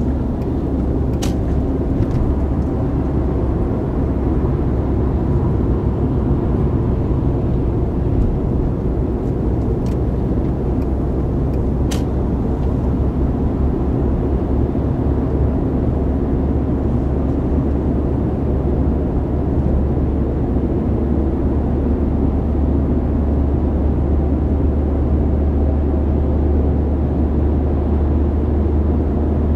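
Steady, unbroken low engine drone of a vehicle, with a faint click near the start and another about twelve seconds in.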